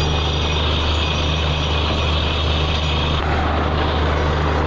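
Truck-mounted borewell drilling rig running steadily, a deep engine drone under a loud rushing hiss of air and water blowing up out of the bore, the sign that the well has struck a high water flow. The highest part of the hiss eases about three seconds in.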